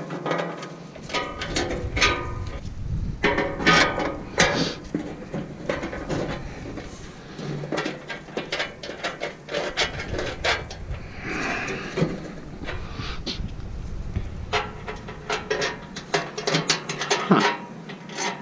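Hands working plastic fasteners and a black plastic panel: a string of irregular clicks, taps and scraping rubs.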